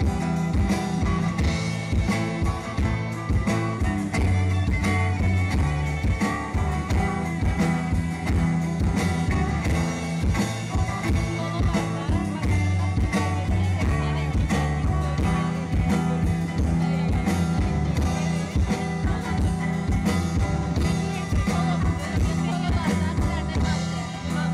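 Live rock band playing an instrumental passage: electric and acoustic guitars over steady low notes, with a drum kit keeping a regular beat.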